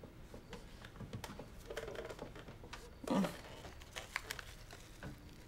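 Faint, scattered small clicks and taps of hands handling food and tableware on a laden kitchen table, with a brief low vocal sound, falling in pitch, about three seconds in.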